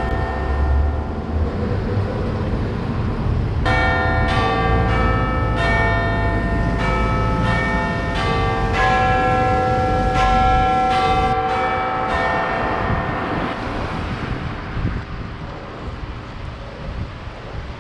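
Church bells ringing a peal, one bell struck after another about twice a second, each note ringing on over the next. A low rumble underlies the first half.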